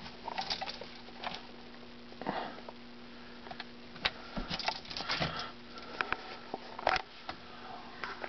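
Scattered light clicks, taps and short rustles of something being handled, over a faint steady hum.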